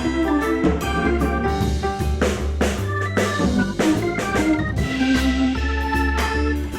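Background music: an instrumental track led by an electric organ or keyboard, with bass and drums keeping a steady beat.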